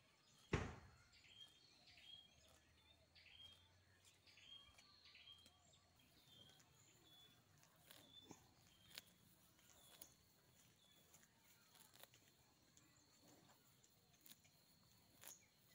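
Quiet outdoor ambience with a small bird repeating a short chirp about every 0.7 seconds, fading out after about seven seconds. A single sharp knock comes about half a second in, and faint scattered clicks and a faint steady high tone follow in the later part.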